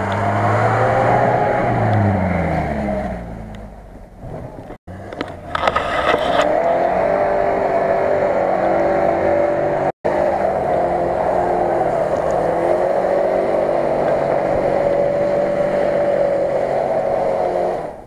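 Lada Niva engine as the car comes down a grassy slope, its pitch rising and then falling over the first few seconds. After a cut, a Subaru Forester's engine runs at steady high revs as it climbs a steep hill, with a brief rattle just after the change.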